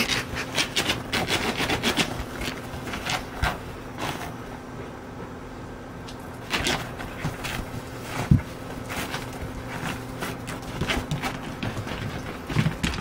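Irregular scuffs and scrapes as a freshly bathed, wet small terrier rubs and rolls itself along outdoor carpet, with one low thump about eight seconds in and a faint steady hum underneath.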